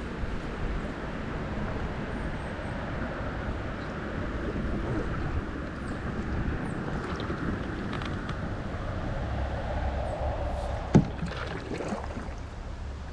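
Steady rushing noise of moving river water and wind on the microphone, with one sharp knock near the end.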